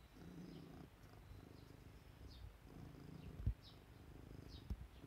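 Domestic cat purring in cycles of about a second each, with faint short chirps of small birds outside and a brief thump about three and a half seconds in.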